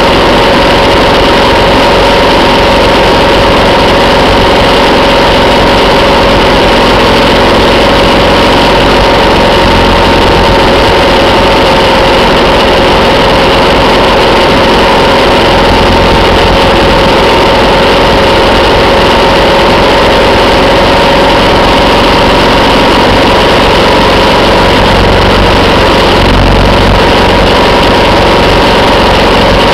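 Motorcycle engine running at a steady cruising speed under heavy wind rush on the microphone, its drone holding one pitch throughout.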